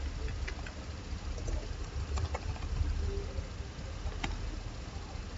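A few faint, scattered clicks of a computer keyboard and mouse over a steady low background rumble.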